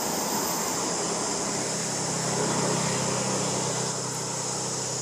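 Steady background noise: a constant high hiss with a low hum that grows louder about two seconds in and eases off about a second before the end.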